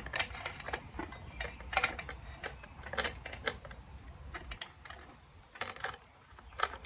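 Irregular light clicks and metallic clinks of motorcycle parts handled by hand while the rear wheel and chain are refitted.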